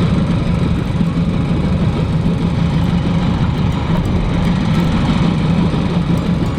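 Sherp ATV's diesel engine running steadily, a low, rough, unchanging rumble.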